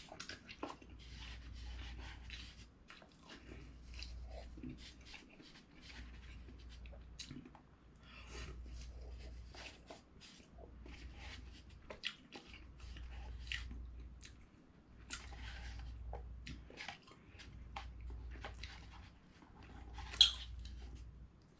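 A person eating instant ramen from a paper cup: chewing and eating noises, with a utensil scraping and tapping inside the cup in many small clicks. There is one sharper, louder sound about twenty seconds in.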